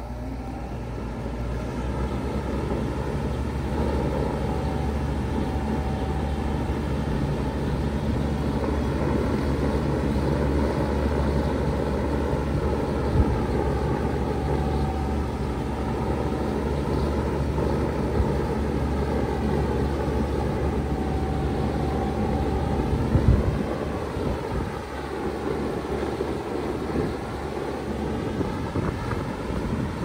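2018 Bard 2.5-ton wall-hung heat pump starting up in heat mode, its compressor hum and fan noise rising over the first few seconds and then running steadily. About three-quarters of the way through there is a thump, after which the low hum is weaker.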